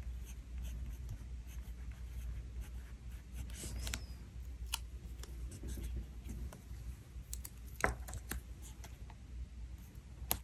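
Faint scratching of a white pen writing on a planner sticker, then a few light clicks and rubs as a small sticker is handled and pressed onto the page.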